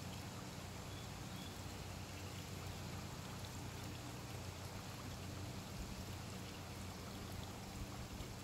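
Steady trickling of swimming-pool water over a low, steady hum.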